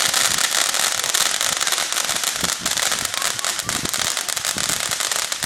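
Consumer firework crackling continuously: a dense, rapid stream of small cracks and pops with no pause.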